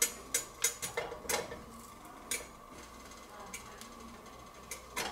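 Whole poblano peppers being set into a preheated frying pan: a run of light knocks and clicks against the pan, several close together at first, then one more a couple of seconds in and a couple near the end.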